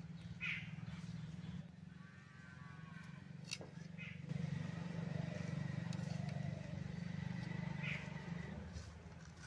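Faint outdoor background: a steady low hum, with a few brief faint calls in the distance and a soft click or two.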